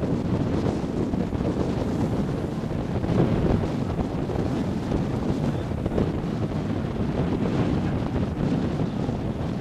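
Wind buffeting the microphone aboard a Beneteau Oceanis 45 under sail, over the wash of water along the hull and the choppy sea. The noise is steady and unbroken and is heaviest in the low end.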